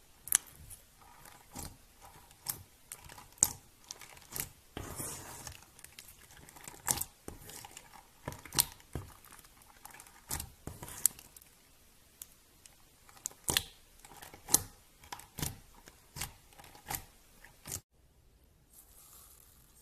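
Slime being squeezed and pressed by hand, giving off irregular sharp clicks and pops with a crinkly texture. It cuts off abruptly near the end to a much softer patch.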